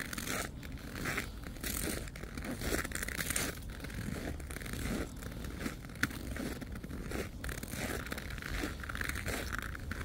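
Footsteps crunching in snow, walking at a steady pace of about two steps a second.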